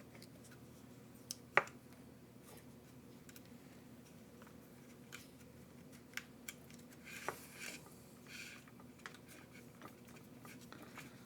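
Hands working wiring and small plastic parts on an RC truck chassis: scattered small clicks and taps, the sharpest about one and a half seconds in, with a stretch of soft rustling a little past halfway.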